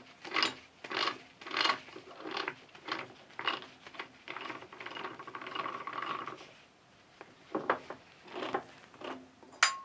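A 160 mm lathe chuck being worked by hand with its key: a series of short, evenly spaced rasping, ratchet-like strokes from its gears and jaws, a pause, a few more strokes, then a sharp metallic click that rings briefly near the end.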